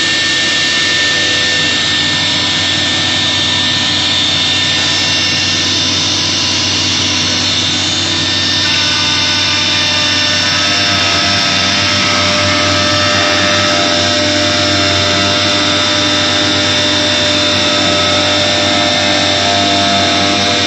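Electric spindle of a 4-axis CNC router running at high speed while it drills holes in a curved wood panel: a loud, steady whine over a rushing noise. About eight seconds in the sound changes, with several new steady tones joining in.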